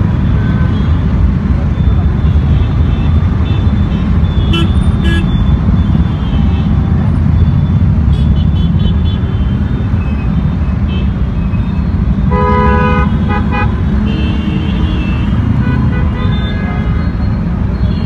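Heavy city traffic at a busy intersection: a steady rumble of cars, motorcycles and auto-rickshaws passing, with scattered short horn toots. A louder vehicle horn honks in several quick blasts about twelve seconds in.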